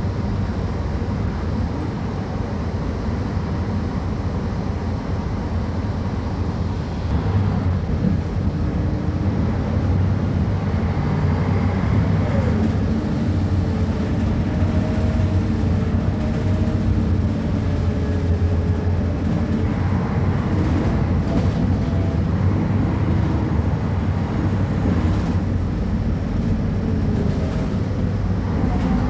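Diesel engine of a Mercedes-Benz O500UA articulated bus running steadily, with a low drone; it gets a little louder about seven seconds in.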